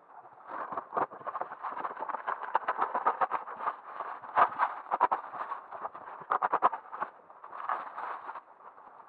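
Large cardboard shipping box being opened by hand: a busy run of scraping, rustling and tearing of packing tape and cardboard that eases off briefly a little past halfway.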